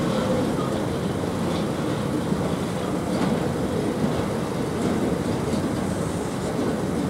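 Freight train of double-deck car-carrier wagons rolling past close by: a steady rumble of steel wheels on the rails, with a few sharper wheel clacks.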